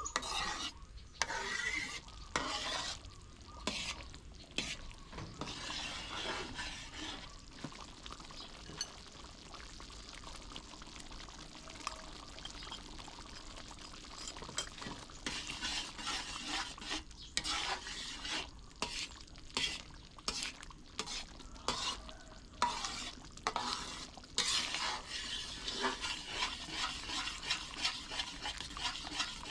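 Food being stirred and scraped in a pan while frying with a sizzle, in stretches broken by several short silent gaps.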